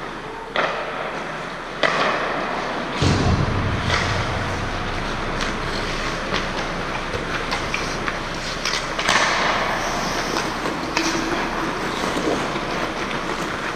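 Ice hockey rink sounds: skate blades scraping the ice, with sharp clacks of sticks and puck. A heavy low thump comes about three seconds in, followed by a low rumble.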